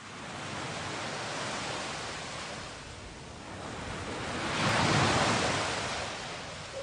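Ocean waves washing in: a steady rush of surf that fades in, swells twice, loudest about five seconds in, and eases off near the end.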